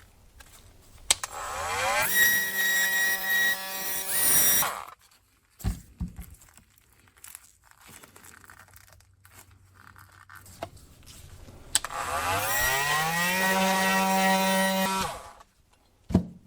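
Milwaukee M18 cordless oscillating multi-tool cutting into the plastic housing of a refrigerator water filter in two runs of about three seconds each. Each run rises in pitch as it spins up, then holds a steady buzz. A few brief knocks come between the runs and near the end.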